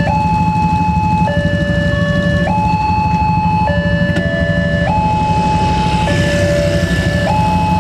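Electronic railway level-crossing warning alarm sounding a two-tone hi-lo signal, switching between a higher and a lower tone each held for a little over a second, over a steady low rumble.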